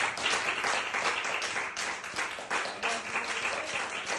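Applause: several people clapping hands in a quick, irregular patter.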